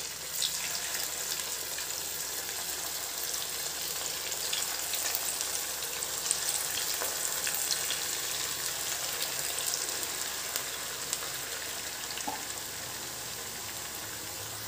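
Balls of grated potato deep-frying in hot oil: a steady sizzle with scattered pops and crackles, swelling about half a second in as the balls go into the oil.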